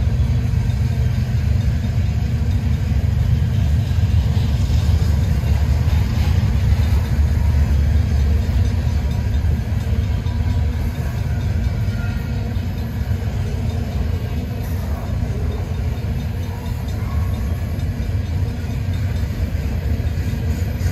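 Freight train running, a steady low rumble without a break.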